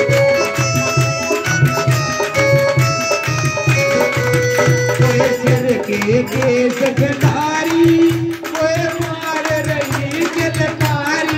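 Haryanvi devotional folk song played with a steady hand-drum rhythm and a melody instrument in short held notes; a singing voice comes in about halfway through.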